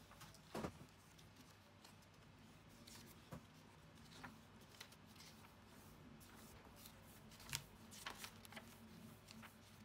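Paper pages of a notebook being turned by hand: faint rustles and flicks, with a sharper flick shortly after the start and another about three-quarters of the way through.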